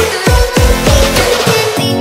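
Electronic dance music with heavy bass and a steady beat, its bass notes sliding down in pitch.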